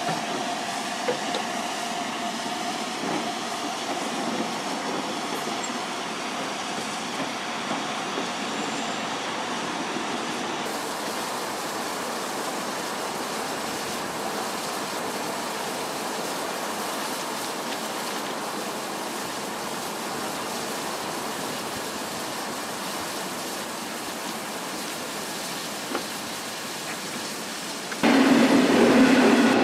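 LMS Black Five 4-6-0 steam locomotive No. 44932 standing with steam hissing steadily. About two seconds before the end, a much louder passing train with a low hum cuts in suddenly.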